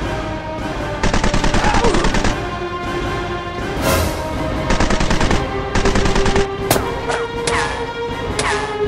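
Several short bursts of rapid automatic gunfire, dubbed-in action-movie sound effects for the toy blasters, each about a second long, with a single loud shot about four seconds in. Background music with steady held tones runs underneath.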